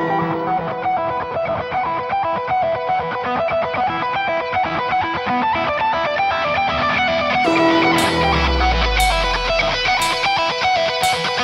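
Music track with fast, repeated picked guitar notes. About seven and a half seconds in, a deep low hit lands and sharp crashes begin on roughly every beat.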